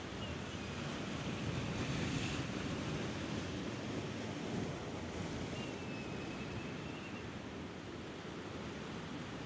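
Wind and sea surf: a steady rushing noise, with wind buffeting the microphone, that swells a little about two seconds in.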